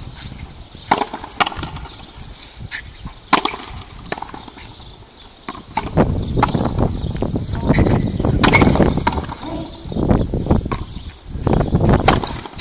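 Frontenis rally: sharp smacks of the ball off the strung rackets and off the concrete fronton wall, irregularly spaced about a second or more apart. A low rushing noise sits under the hits from about six seconds in.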